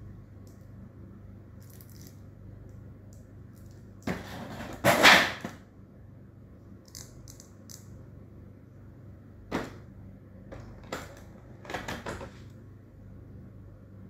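Small plastic stationery pieces (eraser, sharpener, pencils) handled and lifted out of a plastic packaging tray: a loud scraping clatter about four to five seconds in, then a few sharp clicks and taps, over a faint steady low hum.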